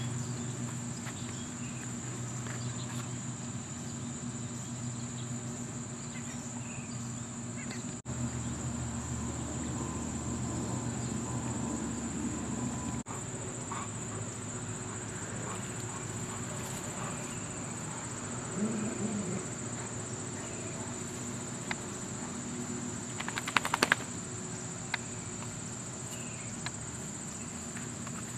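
Steady high-pitched chorus of insects in the grass, like crickets, running without a break. A quick run of sharp clicks sounds a few seconds before the end.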